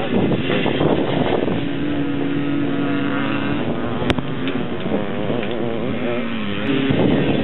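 Vintage air-cooled motocross bikes running on a dirt track: a loud close pass in the first second or so, then engines farther off revving up and down, their pitch rising and falling.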